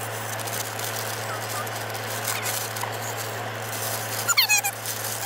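Car interior running noise: a steady low engine hum with road noise, and a few brief, high, sliding squeals about four seconds in.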